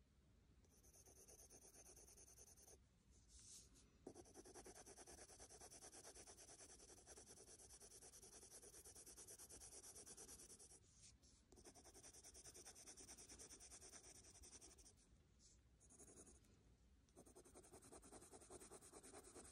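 Prismacolor Premier Parma Violet coloured pencil shading on paper: faint, rapid back-and-forth scratching strokes in several long stretches, broken by short pauses about 3, 11 and 16 seconds in.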